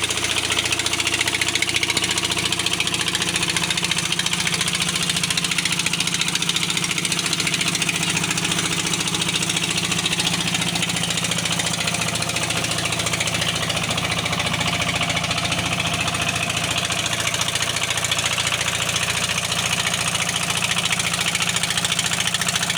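Heavy-equipment diesel engine running steadily at an even speed, with no change in pitch or level.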